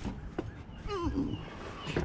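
Someone climbing up onto a steel crawler dozer: scattered knocks and scuffs with a low rumble, and a short sliding tone about a second in.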